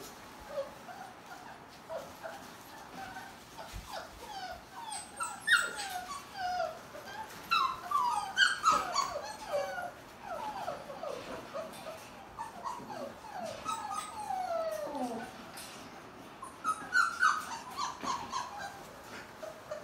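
Six-week-old puppy whimpering: bursts of short, high whines that fall in pitch, busiest around the middle and again near the end.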